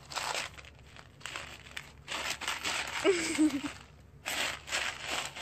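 Dry pinto beans rattling and clattering in a plastic bowl as a ferret digs and burrows through them, in several bursts of rustling.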